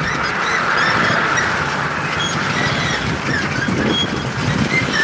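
Steady running noise of a motorbike ride, with the engine and the rush of wind and road sound.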